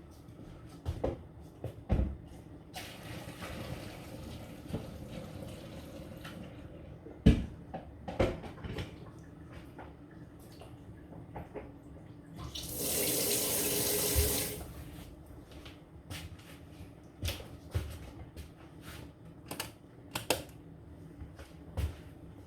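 Kitchen tap running into the sink twice: a few seconds of moderate flow starting about three seconds in, and a louder, brief gush around thirteen seconds in. Scattered knocks and clatter of pots in the sink between.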